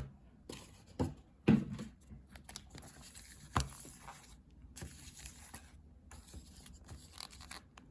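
Foil hockey card packs being handled: scattered wrapper rustling and crinkling with a few sharp taps, the loudest about a second and a half in and again around three and a half seconds in.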